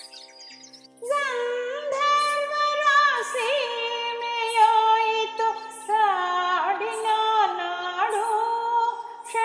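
A woman singing a slow melody with ornamented, gliding notes over a steady drone; the voice comes in about a second in.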